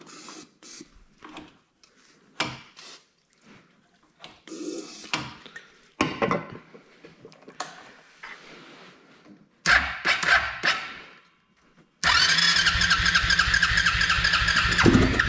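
A 1999 Arctic Cat 300 ATV's single-cylinder four-stroke engine is cranked over, then catches on sprayed starting fluid and runs for about three seconds before cutting out suddenly near the end. Its firing on starting fluid shows it is getting spark. Before that come scattered clicks and handling noises.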